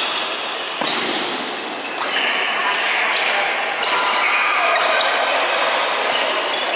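Badminton rally: several sharp strikes of racket on shuttlecock, echoing in a large hall, with players' voices mixed in.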